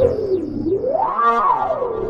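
Electronic music: a synthesizer tone that glides down, then sweeps up and back down in pitch about a second in, theremin-like.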